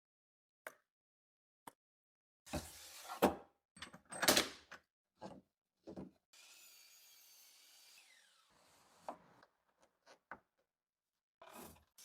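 Wood being handled and worked: scattered sharp knocks and short scraping rubs, then a steadier hiss lasting about two seconds midway, followed by a few more knocks.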